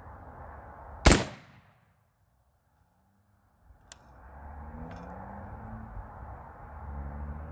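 A single shot from a 10.5-inch-barrel AR pistol firing 55-grain 5.56 ammunition, about a second in, with a short echoing tail. The sound then drops out for about two seconds before the background comes back.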